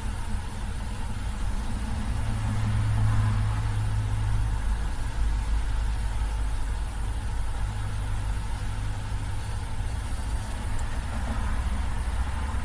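A vehicle engine idling, a steady low hum that swells a little twice.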